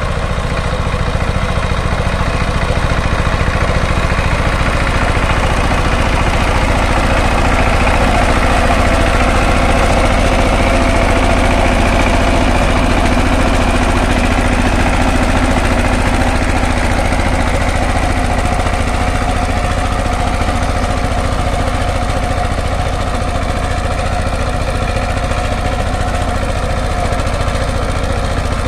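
The 16 hp single-cylinder diesel engine of a two-wheel power tiller (walking tractor) running steadily as it tills a field.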